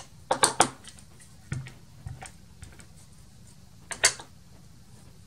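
Clear acrylic stamping block and plastic clear-stamp sheet being handled on a cutting mat, giving light plastic clicks and taps: a quick cluster about half a second in, a few softer knocks, and a sharp tap about four seconds in as the block is pressed down onto the card.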